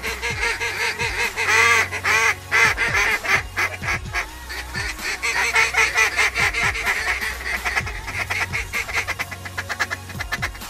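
Mallard-style quacking and rapid chatter, many calls overlapping and repeating quickly, loudest about two seconds in.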